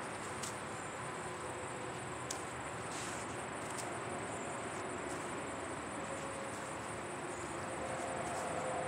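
Steady high-pitched insect trilling over a low outdoor hiss, with a few faint clicks.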